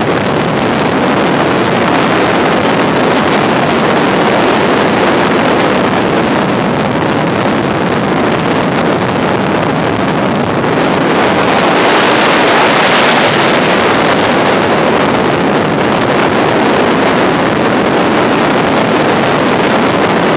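Helicopter in flight: steady, loud engine and rotor noise. A brighter, hissier rush swells for a few seconds about halfway, then settles back.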